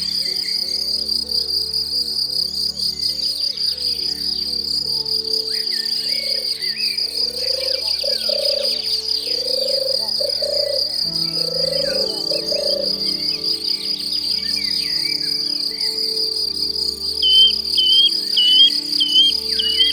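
An insect trilling steadily and without pause, high-pitched, over soft background music with held chords. Near the end a bird gives a quick run of short chirps, about five in a row.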